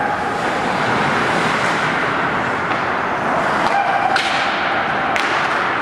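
Ice hockey play: a steady wash of skate and rink noise with several sharp clacks of hockey sticks and puck in the second half.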